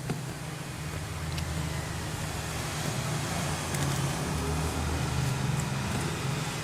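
A low steady rumble that swells and fades slightly around the middle, with a few small sharp clicks.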